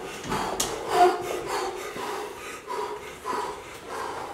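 A lifter's heavy, sharp breaths through the nose, repeated about every half second, as he braces under a loaded barbell for a heavy squat.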